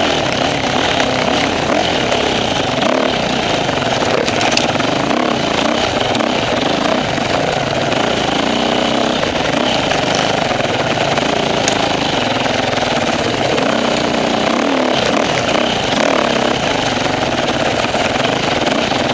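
Off-road enduro motorcycle engine running under way, heard from on the bike, its pitch rising and falling with the throttle as it rides the trail.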